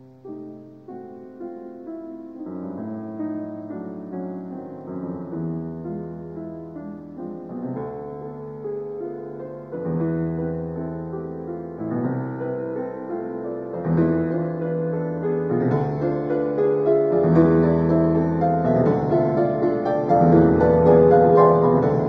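Instrumental background music: chords that change about every two seconds, building steadily louder and fuller, with higher notes joining about two-thirds of the way through.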